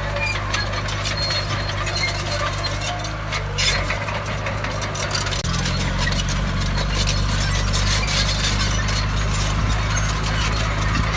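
Diesel engine of heavy earthmoving machinery running steadily, with continual metallic clinking and rattling over it. The engine note changes abruptly about five seconds in and runs a little louder after that.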